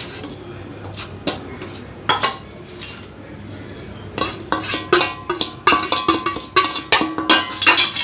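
Metal utensils knocking, scraping and clinking against metal cookware, a few separate strikes at first, then a quick run of clatter from about four seconds in.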